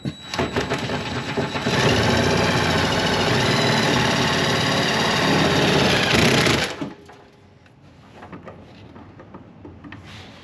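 Electric drill running steadily for about five seconds, drilling a hole, then stopping suddenly, with light handling clicks afterwards.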